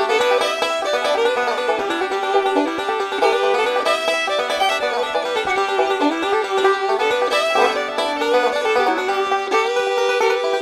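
Background music led by a bright plucked banjo in a bluegrass or country style, a steady run of quick notes.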